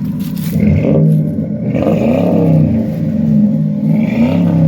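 Mercury Marauder's 4.6-litre V8 revved through its new exhaust, blipped about three times with the pitch rising and falling each time. The engine was just started and is still cold.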